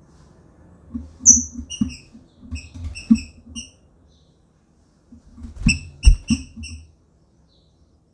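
Female green-winged saltator giving short, high chirps in two quick runs a few seconds apart, with dull thumps among the calls.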